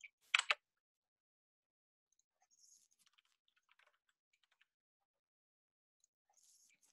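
Faint typing on a computer keyboard: scattered soft key clicks in two short runs, after a brief hiss just after the start.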